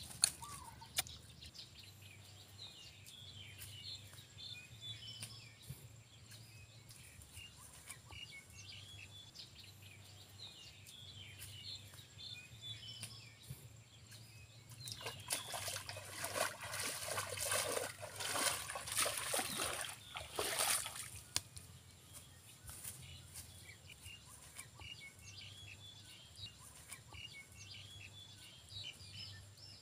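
Feet sloshing and splashing through a muddy puddle for several seconds around the middle, with small birds chirping throughout.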